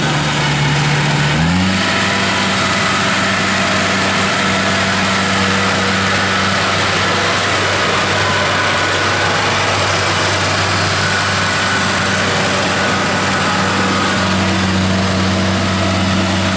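Kubota DC-70 combine harvester's diesel engine running steadily, picking up speed about a second and a half in and then holding at the higher speed.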